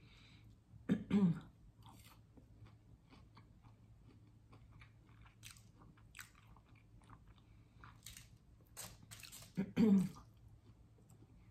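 A person chewing and biting into crispy fried potatoes (hash brown bites and criss-cut fries), with small crunches throughout. There are two brief, louder throat sounds, about a second in and near the end.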